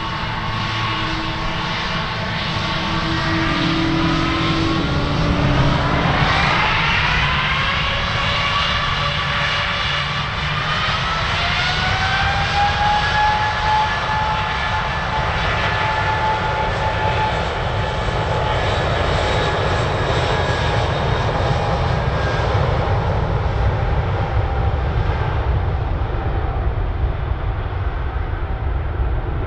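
Boeing 777-281ER's Pratt & Whitney PW4090 turbofans spooling up to takeoff power. The whine rises in pitch in two stages, about six seconds in and again about eleven seconds in, then holds steady over a low rumble as the jet starts its takeoff roll, the higher sound fading near the end.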